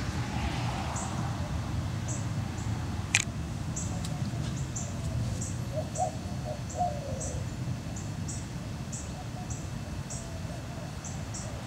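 Low steady rumble, with short high chirps repeating about twice a second and a cluster of bird calls around six seconds in.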